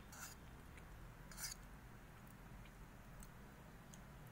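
Faint eating noises at a plate of food: two short scraping sounds about a second apart and a few small ticks over a low room hum.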